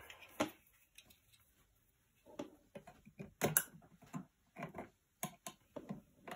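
Spring-loaded battery charger alligator clamps being handled and one clipped onto a battery terminal bolt: a string of irregular sharp clicks and clacks of metal jaws and cable.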